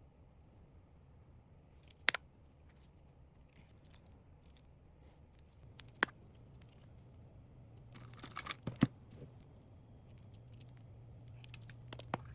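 Small items being handled and set down, with sharp taps about two, six and nine seconds in and light crinkling of packaging around the last tap.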